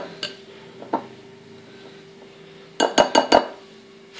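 Silicone spatula scraping and knocking against a glass mixing bowl of cake batter: a couple of single clinks, then a quick run of four sharp knocks about three seconds in. A faint steady hum runs underneath.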